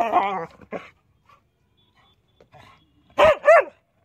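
Black Labrador barking: a short, rough vocalisation at the start, then two sharp barks in quick succession about three seconds in.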